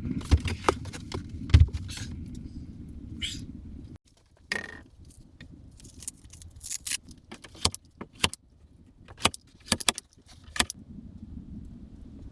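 A series of short, sharp metallic clinks and clicks, as of metal objects being handled, over a low steady rumble in the first few seconds. The rumble cuts off abruptly about four seconds in and returns near the end.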